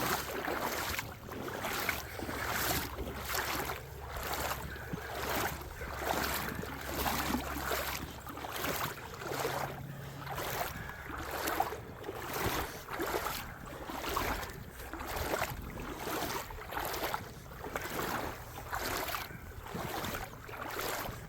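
Footsteps of a person walking at a steady pace, about two steps a second, with a low steady rumble of wind on the microphone underneath.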